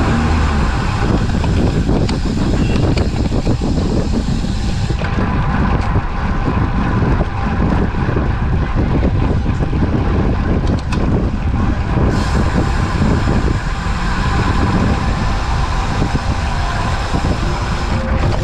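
Steady low rumble of wind buffeting the microphone of a camera carried on a moving road bicycle, with a thinner hiss above it that drops back for several seconds in the middle.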